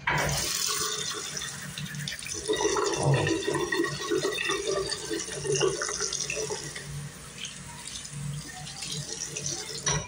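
Bathroom sink faucet running, water splashing into the basin and drain while soapy hands are rubbed under it. The flow starts abruptly.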